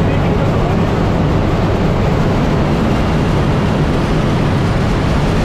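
Steady loud drone of a skydiving jump plane's propeller engines heard inside the cabin, with a constant low hum under a wash of rushing air.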